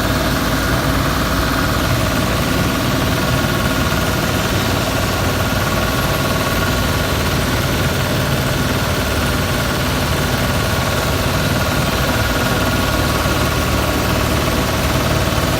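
Engine of a large self-propelled concrete cutting saw running steadily at an even speed, with no revving or change.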